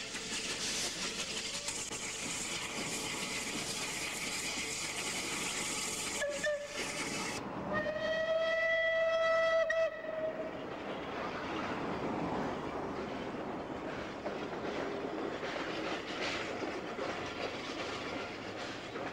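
Bulleid Battle of Britain class steam locomotive working a train, its steam exhaust a steady hiss. About six seconds in the whistle gives a brief toot, then a long steady blast of about two seconds, after which the train runs on.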